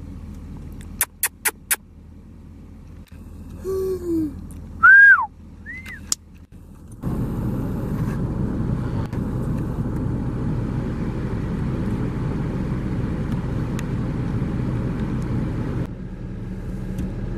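Four quick sharp clicks, then short whistle-like calls that fall in pitch, the loudest about five seconds in. From about seven seconds in, a vehicle engine runs steadily, changing slightly near the end.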